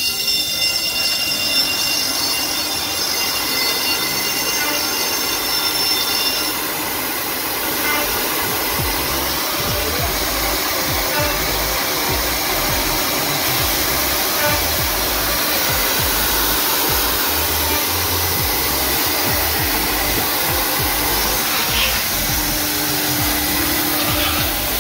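CNC horizontal drilling machine running with its dust extraction, a steady rushing noise. A high whine sits over it for the first six seconds or so and then stops, and a low hum comes in near the end.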